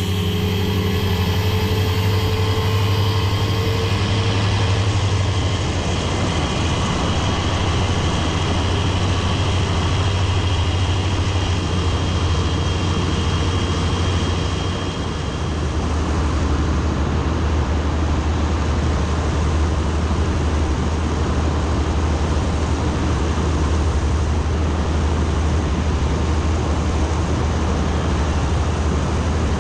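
Bautek Pico L ultralight trike's engine and propeller running steadily at high power under a heavy rush of air noise from the open cockpit. The engine note drops a little about 15 seconds in.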